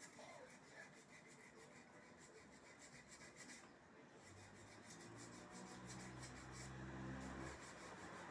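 Faint rubbing and scratching, as of parts being handled or scraped, then a low steady hum that comes in about four seconds in and fades near the end.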